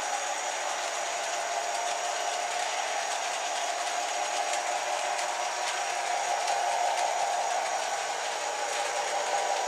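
Lionel LionChief Plus O gauge model train running on three-rail track: a steady whir of motor and wheels, with faint clicks.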